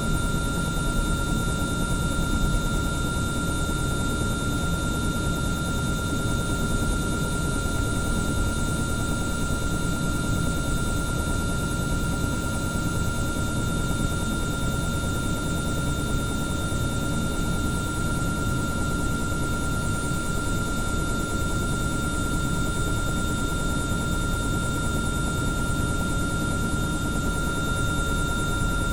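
Bell 505 Jet Ranger X helicopter running steadily, heard from inside the cabin: a constant turbine whine over a dense rotor and engine rumble, with no change in pitch or level.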